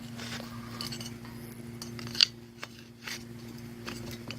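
Hand tools and metal engine parts clinking and scraping, with scattered sharp clicks, the loudest about two seconds in, as a part on an ATV engine is worked loose.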